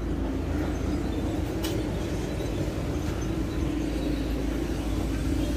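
A steady low mechanical hum and rumble with one faint click a little under two seconds in.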